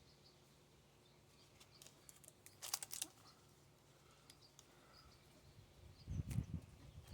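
Quiet handling of trading cards and their foil pack: a short cluster of crisp crackles about two and a half seconds in, then low rumbling handling noise near the end.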